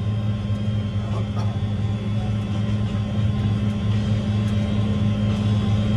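Large tractor's diesel engine running steadily under load, pulling a turbo vertical-tillage tool through the field, heard from inside the cab as an even low drone.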